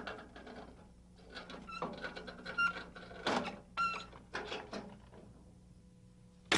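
Scattered metallic clicks and clanks, a few of them ringing briefly, as parts of a portable band sawmill are handled during setup.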